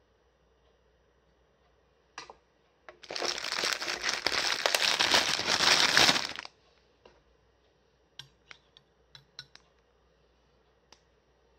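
Packaging crinkled by hand for about three seconds, a dense crackle, followed by a few light clicks.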